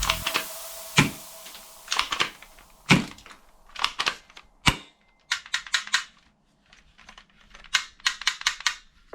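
Sharp clicks and snaps of toy guns being worked and fired, coming singly or in quick runs of three to five, with a short pause about two thirds of the way through.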